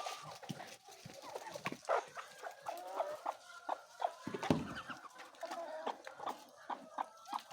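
A flock of five-week-old local chicks calling, many short pitched calls overlapping, with scattered light taps and one low thump about four and a half seconds in.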